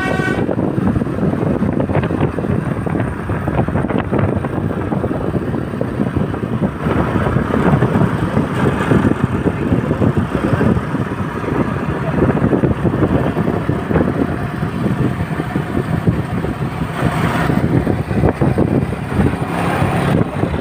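Road traffic: heavy vehicles' engines running and tyres on the road, a steady rumbling noise with no horn sounding.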